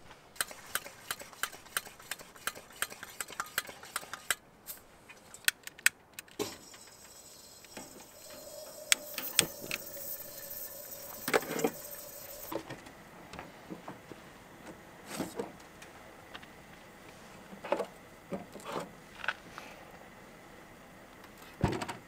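Quick clicks and clinks of small hard objects being handled, then a stretch of steady hiss from about six to twelve seconds in, followed by scattered knocks and clinks.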